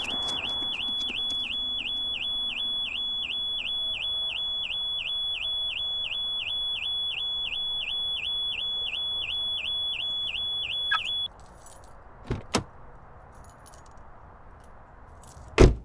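Car alarm siren wailing in a fast repeating sweep, about three cycles a second, cutting off suddenly about eleven seconds in. Two sharp clicks follow, then a heavy thump near the end as a car door shuts.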